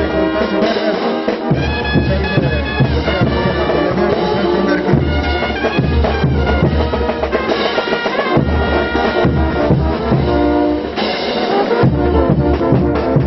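Brass band music with drums: brass instruments playing a dance tune over a steady bass-drum beat.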